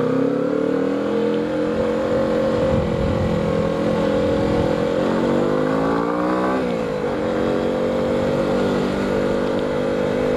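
Motorcycle engine running under way, its pitch climbing steadily and then dropping sharply about six and a half seconds in, as on a gear change, over a steady hiss of wind and wet road.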